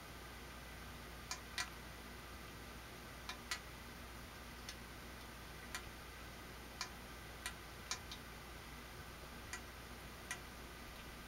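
Faint, sharp clicks at irregular intervals, about a dozen, some in close pairs, over a low steady hum.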